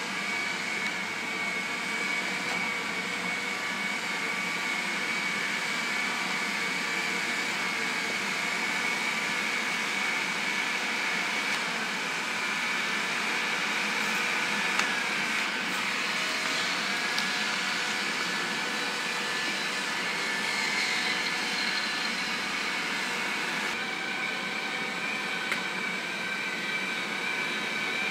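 Small wheeled painting robots running across the floor: a steady electric motor whir with several thin whines that waver now and then, plus a few faint ticks.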